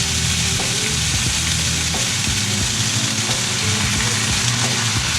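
Chicken breast pieces frying in olive oil and garlic in a sauté pan with a little chicken stock just added: a steady sizzle.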